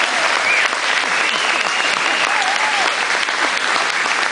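Audience applauding steadily and densely, with a few voices calling out over it.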